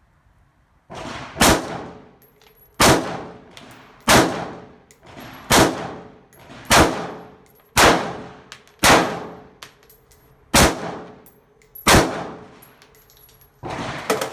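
AR-15 rifle fired semi-automatically: about ten shots at a steady pace of roughly one a second, each with a ringing tail, coming a little faster near the end.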